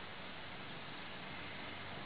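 Steady hiss of rain falling during a thunderstorm.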